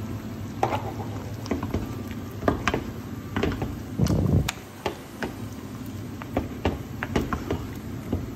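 Wooden spatula stirring meat into simmering soup in a metal pot, with irregular clicks and knocks of the spatula against the pot and a louder spell of stirring about four seconds in.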